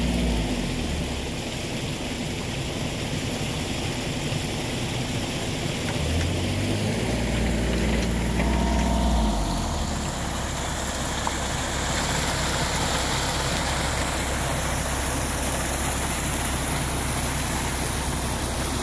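An engine running steadily with a deep hum for about the first half, which drops out about halfway through, leaving a steady rush of muddy water flowing down an eroded ditch.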